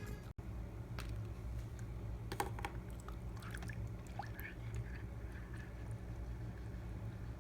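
Steady low hum of a reef aquarium's water pump, with faint water trickling and a few light clicks.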